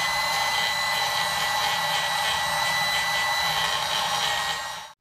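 Handheld grinder with a small burr grinding thin spots off a tractor's repaired rear-case casting, running at a steady high whine. It winds down and cuts off just before the end.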